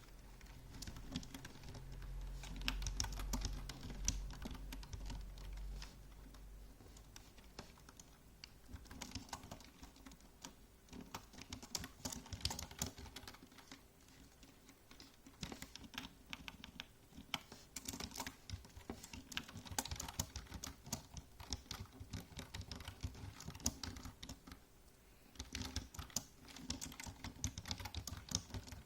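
Typing on a computer keyboard: rapid key clicks in uneven bursts with short pauses between them. A low rumble runs under the clicks for the first few seconds.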